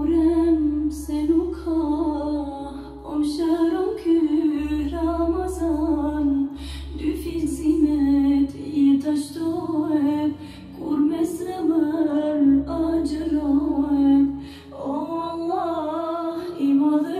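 Background music: a woman singing a melody over a low sustained drone that drops in and out.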